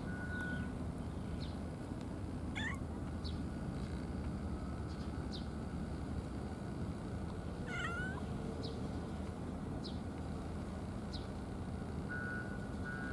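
A cat meowing twice, short calls about two and a half seconds in and again near eight seconds, over a steady low background rumble.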